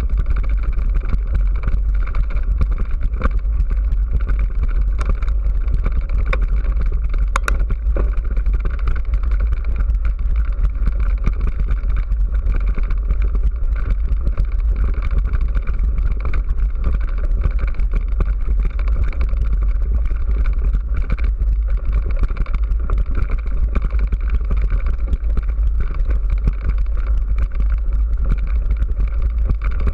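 Mountain bike rolling over a loose, rocky gravel track, picked up by a camera mounted on the bike: a loud, steady rumble and rattle of tyres on stones and frame vibration, with constant small ticks.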